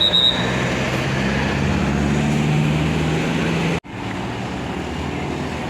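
Heavy road vehicle's engine running close by amid road traffic noise, its note strengthening and rising slightly before the sound cuts out abruptly a little under four seconds in; traffic noise then continues. A short high-pitched tone sounds right at the start.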